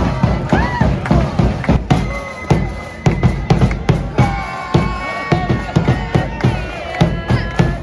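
Loud music with a steady, heavy drum beat of about two beats a second, with voices over it.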